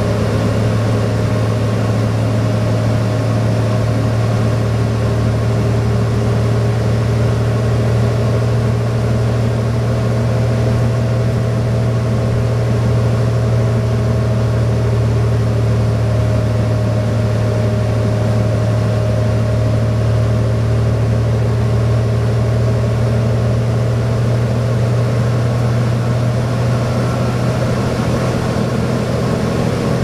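A 2007 New Flyer D40LFR transit bus's Cummins ISL diesel engine runs with a steady drone at an even cruising speed, heard from inside the passenger cabin. Tyre and road noise sits under it, with no marked revving or gear change.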